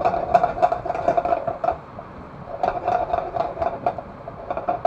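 Shrimp and garlic sizzling in butter in a nonstick pan over high heat, with a silicone spatula scraping and tapping the pan in quick, uneven strokes as it is stirred, over a steady hum.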